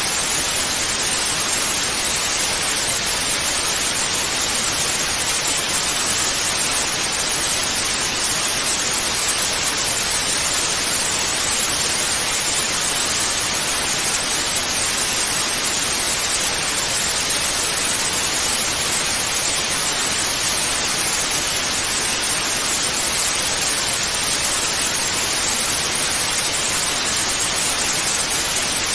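Analog TV static: a loud, steady, even hiss with most of its energy in the upper range, unchanging throughout.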